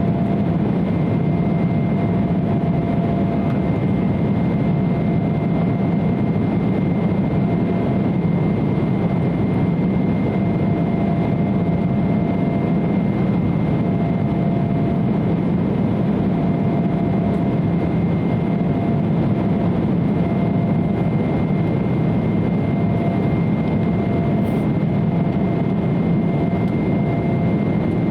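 Steady in-cabin drone of an Embraer 170 airliner in flight: the rush of airflow and the low hum of its two GE CF34-8E turbofan engines, with two thin steady tones, one mid-pitched and one higher, running through it.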